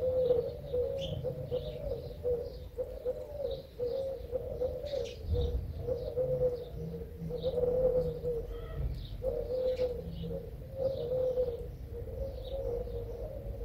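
Doves cooing over and over in a steady run of short coos, with small birds chirping higher in the background.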